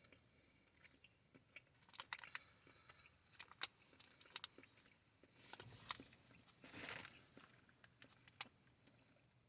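Faint chewing of soft fruit-snack gummies: scattered soft mouth clicks, with a brief louder noisy stretch about seven seconds in.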